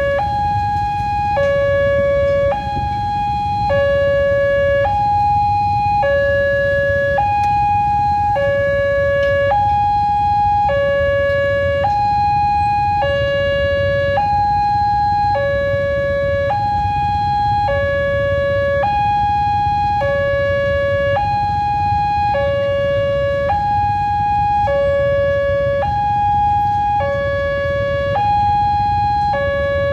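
Railway level-crossing warning alarm sounding: an electronic two-tone signal alternating a higher and a lower tone, each held about two-thirds of a second, over a steady low rumble. It warns that a train is approaching the crossing.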